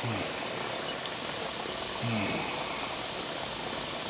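Steady hiss of live steam let from a Jensen 70 model boiler through the steam line into a small double-acting oscillating steam engine, which is not yet running.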